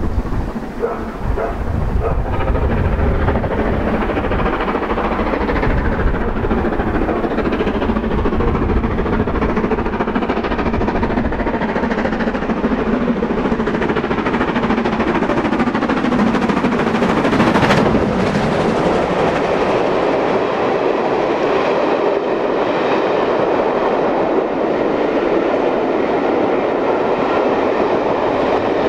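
LMS Black 5 two-cylinder 4-6-0 steam locomotive working hard up a gradient with a rapid, loud exhaust beat. Its coaches then roll past, wheels clattering over the rail joints.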